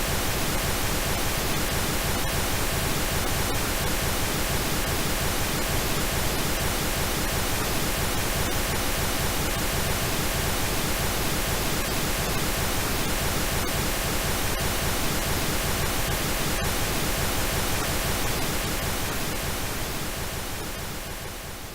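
Steady synthetic pink noise, an even hiss spread across all pitches, that fades out near the end.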